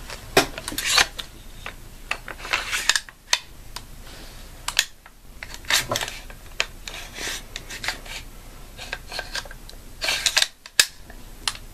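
An AR-15 rifle being handled during reassembly: scattered sharp clicks and short rubbing and scraping noises of its parts as the receivers are fitted back together.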